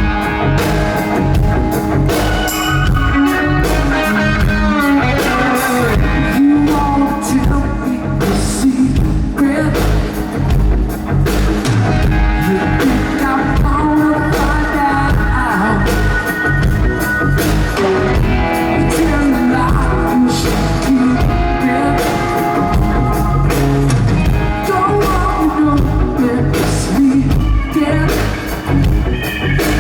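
Rock band playing live, with a sung lead vocal over electric guitars, bass and a steady drum kit beat.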